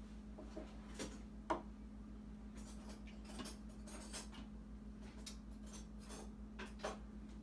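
A spoon clinking and scraping against the stainless steel inner pot of an Instant Pot while stirring thick soup, with a scatter of short knocks, the sharpest about a second and a half in. A steady low hum runs underneath.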